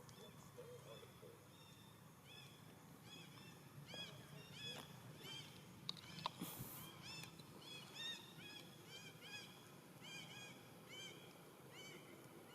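A long run of short, high, arched chirping calls from an animal, several a second, faint against a quiet outdoor background, with a sharp click about halfway through.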